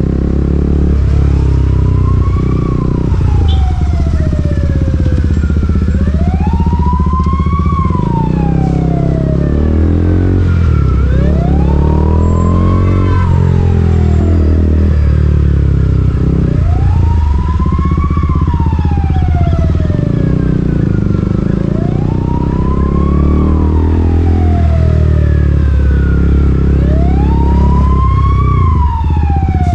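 Emergency vehicle siren wailing, its tone rising quickly and falling slowly about every five seconds, over the steady low rumble of a KTM Duke 200 single-cylinder motorcycle engine and road noise.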